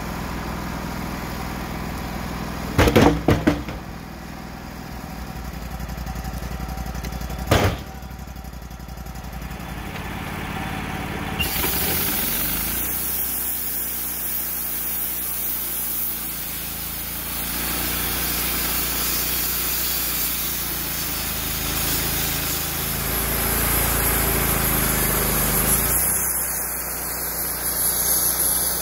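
Wood-Mizer LT35 portable band sawmill running steadily, with a cluster of heavy wooden knocks about three seconds in and another single knock a few seconds later as a slab is handled off the white oak cant. From about twelve seconds on the sound grows louder and brighter as the saw head travels along the log.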